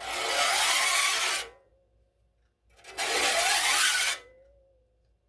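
Fine flat file drawn twice along the side of a hand saw's teeth to deburr them, two long rasping strokes. After each stroke the steel saw blade rings faintly.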